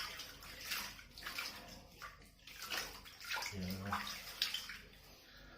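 Warm bathwater sloshing and splashing in irregular bursts as a kitten is washed and paddles in it, with a brief low hum of a voice about three and a half seconds in.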